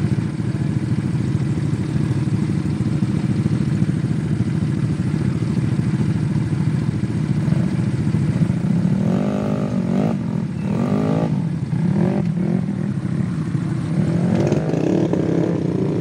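Automatic scooter engines running steadily on a dirt trail. From about nine seconds in, short rising and falling revs come through over the steady engine sound.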